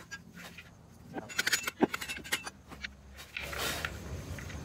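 Coconut husk fibres being torn and scraped off a coconut by hand: a run of sharp clicks and crackles in the middle, then a short rasping scrape near the end.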